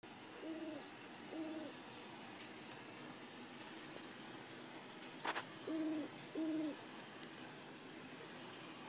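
A short, sharp sneeze about five seconds in, over crickets chirping at a steady fast pulse. Two pairs of short, low hoots come before and just after the sneeze.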